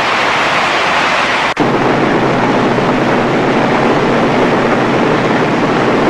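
Loud, steady rush of torrential floodwater, with an abrupt cut about a second and a half in to a deeper rush.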